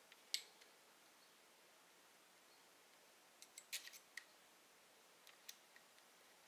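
Near silence broken by a few faint, sharp clicks of a hex driver tip on a small screw, as the screw is lined up with its hole in a scale RC truck's axle part. There is one click just after the start, a quick cluster a little past halfway, and one more near the end.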